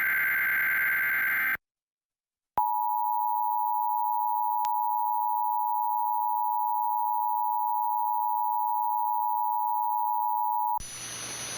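Emergency Alert System broadcast tones. The end of a SAME digital header burst, a harsh buzzing warble, stops about a second and a half in. After a second of silence, the EAS attention signal, a steady two-tone alert tone near 900 Hz, sounds for about eight seconds. It then gives way to a quieter steady hiss near the end.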